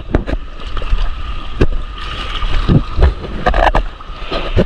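Shallow sea water splashing and sloshing at close range, with wind buffeting the microphone and irregular knocks and splashes throughout.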